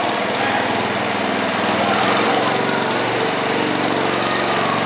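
Small garden tractor's engine running steadily under load as it pulls a sled down the track.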